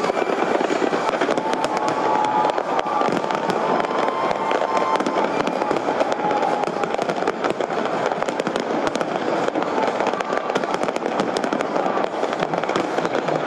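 Large fireworks display going off in a dense, continuous barrage of bangs and crackles.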